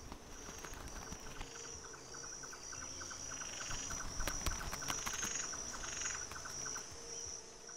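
Crickets chirping: a steady high trill over a quicker, lower pulsed chirping, fading down near the end.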